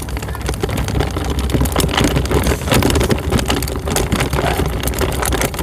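Wind buffeting the phone's microphone in a steady low rumble, with irregular crackles and knocks from the phone being handled.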